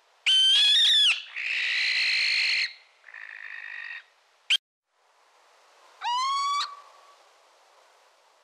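Owl calls: a loud high shriek, then a harsh hissing screech and a weaker one, a short sharp yelp, and after a pause a single call that rises in pitch.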